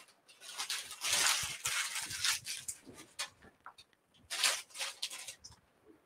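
Wrapping rustling and crinkling as raw pounded chicken cutlets are unwrapped and laid on a cutting board. It comes in irregular bursts, the loudest about a second in and again about four and a half seconds in, with small handling ticks between.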